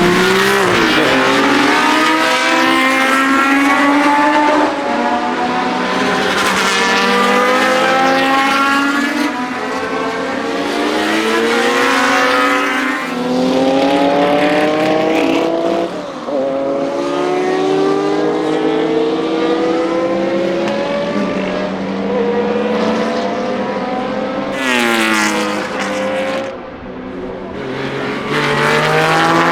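Historic racing cars passing one after another at full throttle, each engine climbing in pitch, dropping briefly at upshifts, and falling away as the car goes by.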